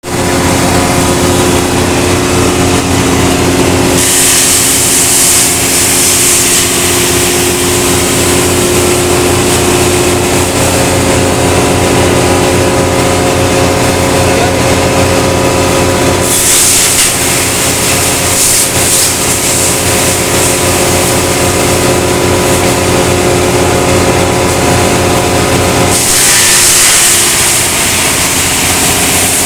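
Wood chipper shredding wood veneer: the machine runs steadily, and three times, about four, sixteen and twenty-six seconds in, a loud rushing, hissing noise rises over it for two to three seconds as veneer goes through.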